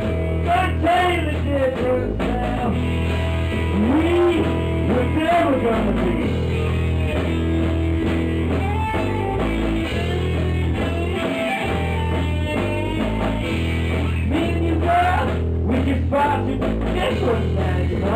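Live rock trio jamming: electric guitar, bass guitar and drum kit playing together, loud and unbroken, with notes bending up and down over the bass and drums.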